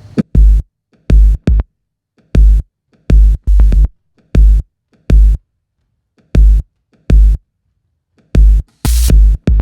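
Electronic music built on a drum machine: short, heavy bass-drum hits in a stop-start pattern with complete silence between them, coming closer together near the end.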